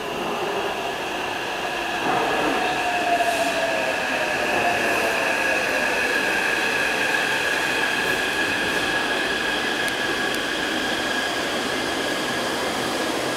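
Taipei Metro C381 train pulling into an underground station and slowing to a stop. The train noise swells about two seconds in, and a motor tone glides slowly down in pitch as the train brakes, with steady high-pitched whines over it.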